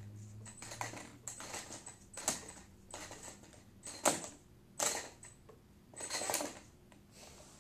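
Blade mSR micro RC helicopter flopping on its side on carpet, its spinning rotor blades slapping and scraping against the carpet in irregular bursts of clatter, with a few sharper hits in the second half.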